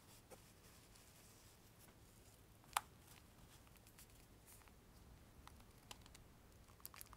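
Faint handling sounds of a small doll being dressed: a few scattered light clicks and taps, the sharpest about three seconds in and several more near the end, over near silence.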